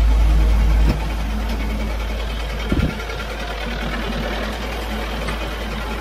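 Farm tractor's diesel engine running steadily. The sound drops in level about a second in, and there is a single short knock near the middle.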